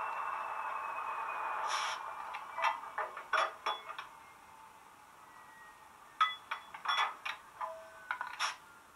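Model railway sound effects: a steady hum with a slowly falling whine dies away over about two seconds, then sharp metallic clinks and clanks come in two clusters.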